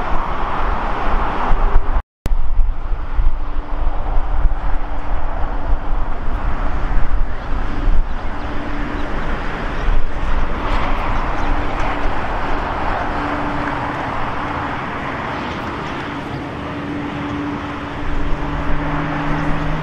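Jet airliner engines running at taxi power: a steady rushing noise over a low rumble, with a faint steady hum. The sound drops out completely for a moment about two seconds in.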